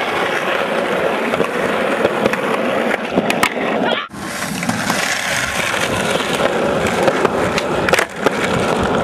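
Skateboard wheels rolling on a concrete path, a steady rough rumble, with sharp clacks of the board hitting the ground about three and a half seconds in and again near eight seconds as flip tricks are tried.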